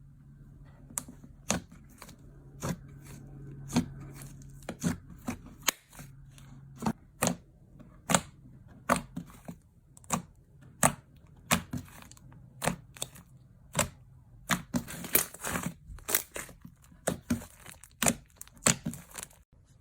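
A run of sharp, crisp snaps and crunches at an uneven pace of about one or two a second, with a denser crackling stretch a little past the middle.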